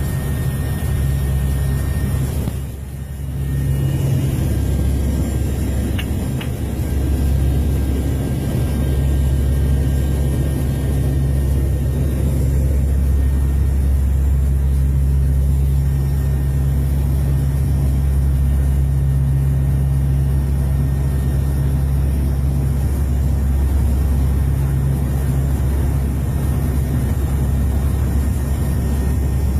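Aircraft engines droning steadily, heard inside the cockpit in flight, with a brief dip about three seconds in.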